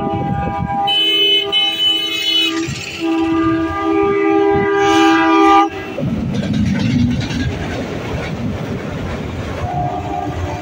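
Train air horn sounding two long multi-note blasts, the second cutting off suddenly about halfway through. Then the steady rumble of a diesel locomotive train passing.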